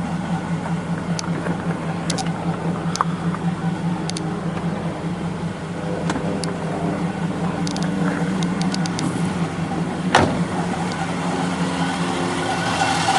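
1967 Pontiac Firebird's 326 V8 idling steadily, a smooth, healthy-running idle. A few light clicks are heard over it, with a sharper knock about ten seconds in.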